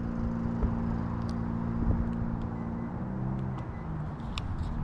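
Car engine idling steadily, a low hum with a few faint ticks over it.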